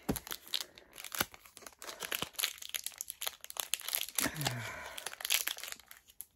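Foil wrapper of a Pokémon card booster pack crinkling and rustling in the hands, with irregular crackles throughout. A brief low murmur of voice comes about four seconds in.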